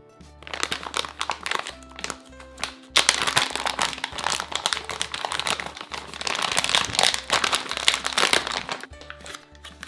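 Crinkly plastic packaging being handled and torn open as a surprise toy is unwrapped, with heavy crinkling through the middle, over background music with a steady bass line.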